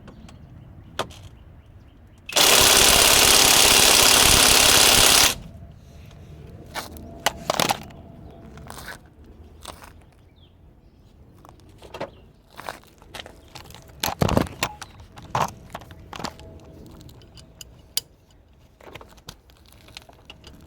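An impact wrench runs in one steady burst of about three seconds, a couple of seconds in, while shock-absorber bolts are worked on. Around it come scattered metallic clicks and knocks of tools and parts being handled.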